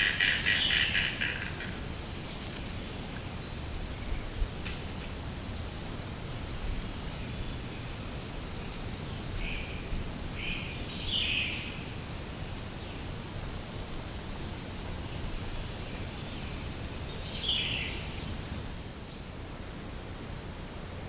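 Wild bird chirps in a swamp: short high notes repeating about every second and a half over a steady high-pitched whine, with a quick rattling series of lower notes at the start and a few lower notes around the middle. Everything cuts off suddenly near the end, leaving a steady hiss.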